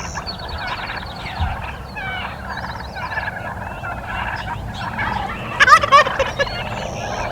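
Gould's wild turkeys gobbling, with one close, loud gobble about five and a half seconds in, amid a busy chorus of higher, trilling bird calls.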